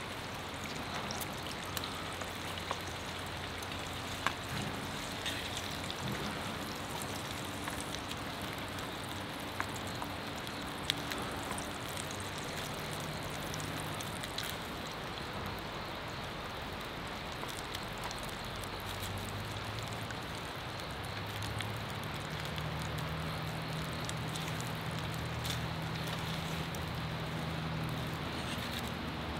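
Food sizzling in a frying pan over a wood fire: a steady frying hiss with a few scattered clicks, as a wooden spatula stirs the food in the pan.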